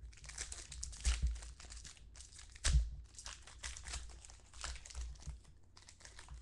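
Foil trading-card pack wrappers crinkling and tearing as hands open and handle them. Two louder thumps come about one second in and near the three-second mark.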